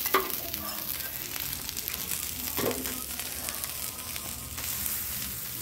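Pupusas sizzling on a hot flat-top griddle, a steady frying hiss.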